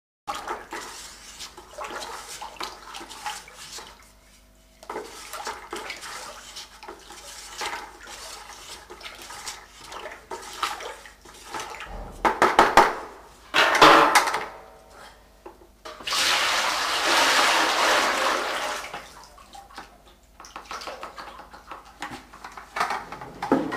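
Liquid majolica glaze being stirred by hand and sloshed about in a plastic bucket, with a few loud splashes and knocks about halfway through. Then comes a few seconds of steady pouring as the glaze is tipped from the bucket into a galvanised metal bowl.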